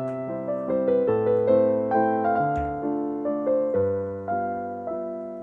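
Background piano music: a gentle melody of single notes, each ringing and fading.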